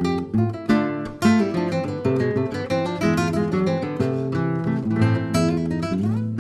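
Background music: acoustic guitar, many quick plucked and strummed notes.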